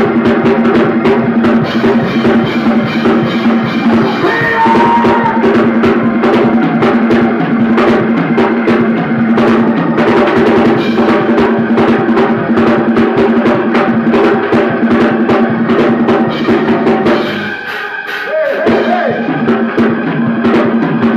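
Church praise-break music: a drum kit plays a fast, busy beat with rolls over a held chord. The music briefly thins out and drops in level about 17 seconds in, then comes back.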